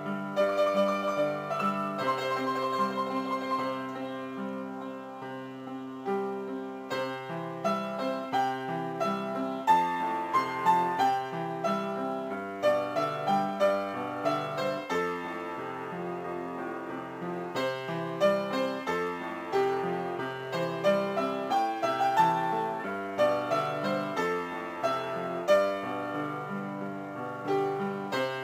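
Instrumental music played on a piano-like keyboard: a melody of short, clearly struck notes over a moving bass line.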